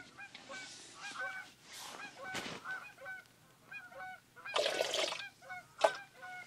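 A flock of geese honking, short calls repeated over and over. Over them comes the rustle of a pouch or bag being handled and opened, loudest about five seconds in.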